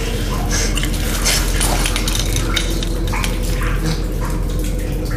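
Scuffling on a debris-strewn floor: scattered light scrapes and clinks over a steady low hum.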